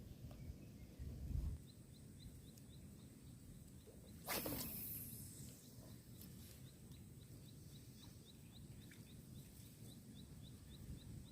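Quiet outdoor ambience with a faint, regular high chirping of a few chirps a second, and one louder swish gliding downward in pitch about four seconds in.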